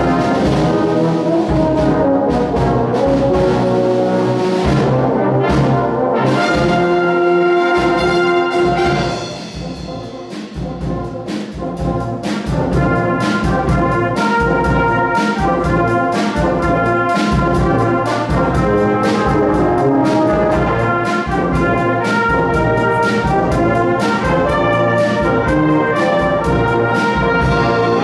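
Brass band with drum kit playing a concert piece, trombones and trumpets to the fore. About nine seconds in the music drops to a softer passage, then builds back up over steady, regular drum beats.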